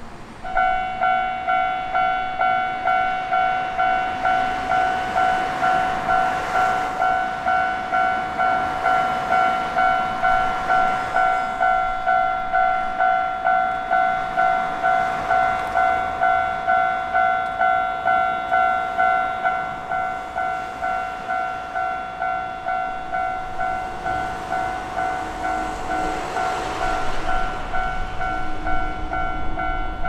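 Japanese railroad crossing warning bell starting abruptly about half a second in and ringing on and on in a quick, even run of electronic dings, signalling that a tram is coming. A rumbling, rushing noise grows under it near the end.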